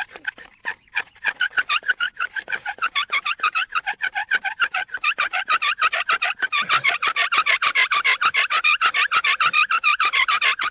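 Bow drill at work: a wooden spindle squeaking and rasping as it turns in the hearth board, driven by rapid back-and-forth bow strokes. The strokes get faster and louder about halfway through.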